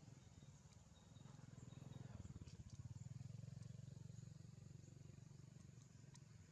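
Near silence: a faint low rumble that swells a little about two seconds in and eases off again, with a few faint high ticks.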